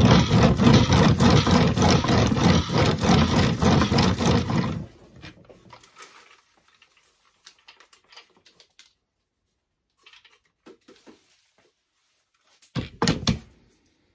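Worm castings being sifted by hand through a wooden-framed quarter-inch wire mesh screen: a dense, rattling scrape of compost worked back and forth over the wire for about five seconds, then it stops. Scattered light handling knocks follow, and a short second burst of sifting comes about a second before the end.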